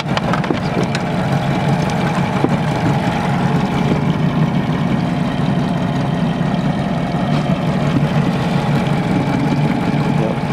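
Mid-2000s Honda 8 hp four-stroke outboard, a two-cylinder motor, running steadily at low trolling speed as it pushes the boat.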